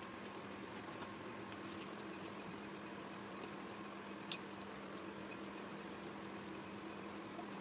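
Faint scraping and light taps of a plastic dough scraper pressing and spreading sticky dough on a floured countertop, over a steady low hum. One sharp click stands out about four seconds in.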